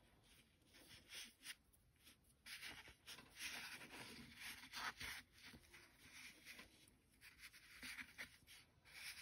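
Faint rustling and rubbing of yarn strands as fingers tease apart a small doll's yarn hair, with a few small handling ticks.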